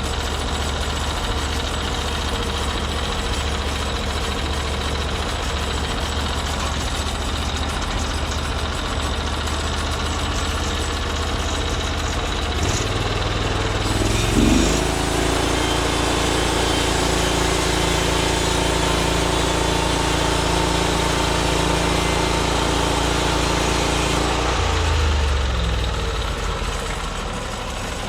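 Small gasoline engine of a portable bandsaw mill idling, then throttled up about halfway through. It holds a steady higher speed for about ten seconds and drops back to idle near the end.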